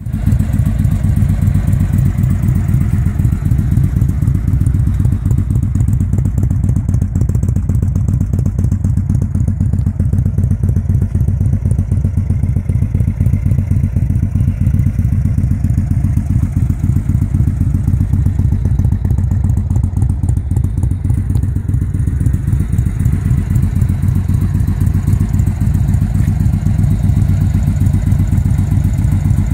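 2016 Indian Chief Classic's Thunder Stroke 111 V-twin idling steadily through an aftermarket Freedom exhaust, an even, low-pitched pulsing.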